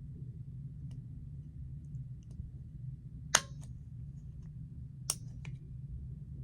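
Dog nail clipper snipping through toenails: two sharp clicks about a second and a half apart, each followed by a fainter tick, over a steady low hum.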